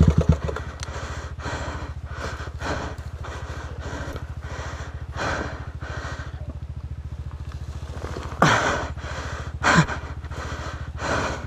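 Trail motorcycle engine dropping from revs to a steady idle, with a few short, louder noisy sounds over it, the loudest about 8.5 and 10 seconds in.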